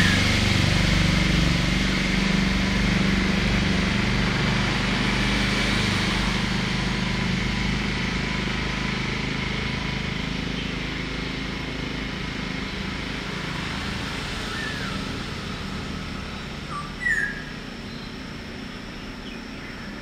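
Steady engine noise that slowly fades away, with a short, sharp bird call about three-quarters of the way through.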